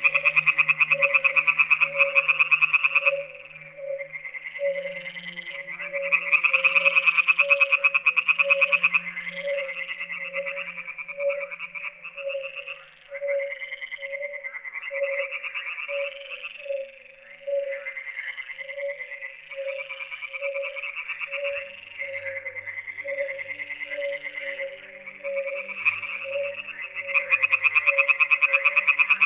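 Frog chorus: bouts of rapid, pulsed high croaking swell and fade every few seconds. The bouts are loudest at the start, again a few seconds later and near the end. Under them runs an even series of short lower calls at about two a second.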